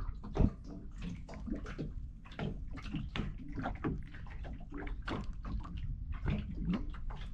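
Sea water lapping and sloshing against the hull of a small fishing boat in irregular splashes, with no engine running.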